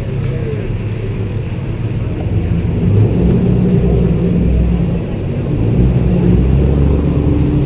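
City street traffic: car engines running and passing as a low rumble with a faint hum, swelling about three seconds in and again after six seconds.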